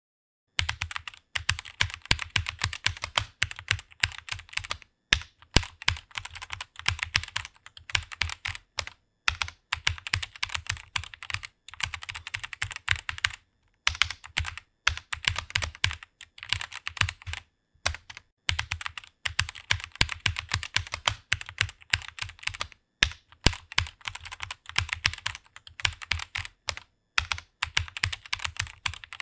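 Computer keyboard typing: rapid, continuous keystrokes in fast runs, broken by short pauses of a fraction of a second between words or phrases.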